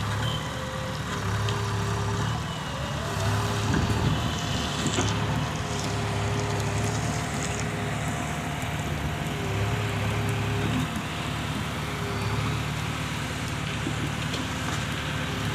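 A motor vehicle's engine running steadily, its low hum swelling and easing every second or two, with a few faint steady tones above it.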